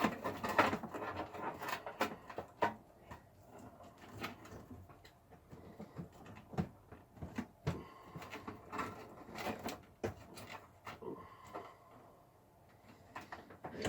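Irregular clicks, taps and rustling of hands working cables and plastic connectors inside a computer case, as Molex power plugs are pushed onto the DVD and CD-RW drives.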